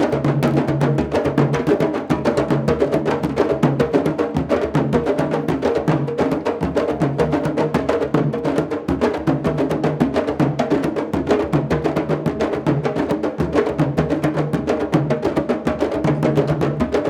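A candombe drum ensemble playing: a dense, steady run of stick and hand strikes on the drums, with the hard clicks of sticks on the wooden shells.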